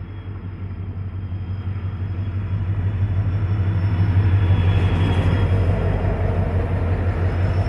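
WDP4 diesel locomotive hauling a passenger train past at close range: a steady low engine drone with rail noise and a thin high whine. It grows louder as the locomotive goes by about four seconds in, then the coaches roll past.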